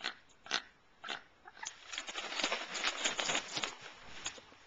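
Juvenile bald eagle giving a few short, sharp calls about half a second apart, then beating its wings in a rapid, noisy flurry for about two seconds.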